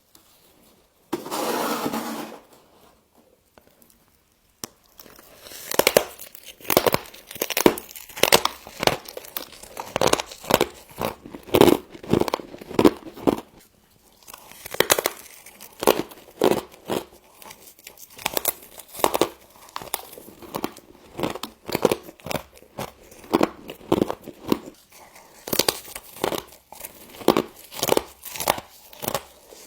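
Close-up crunching and chewing of frost in the mouth: dense, irregular crisp crunches several times a second from about five seconds in. A short burst of noise comes about a second in, before the crunching starts.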